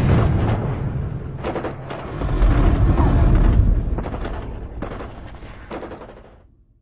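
War sound effects of explosions and gunfire: a deep, heavy rumble broken by a few sharp blasts. It swells again about two seconds in, then fades out near the end.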